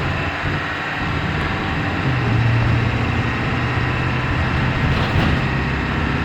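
2004 Blue Bird 3800 school bus driving, heard from inside the cabin: a steady low engine hum over road noise.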